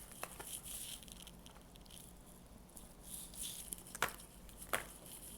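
Tarot cards being handled on a table: a few light taps, two near the start and two more about four seconds in, over a faint steady hum.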